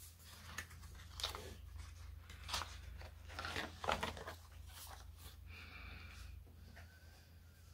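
Thick pages of a ring-bound photo journal being handled and turned: faint paper rustling and crinkling, in several short rustles.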